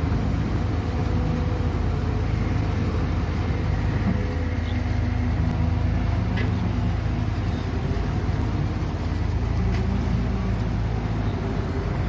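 Diesel engine of a Hitachi ZX130 amphibious excavator running steadily as the machine moves slowly on its pontoon tracks, with a few faint clicks.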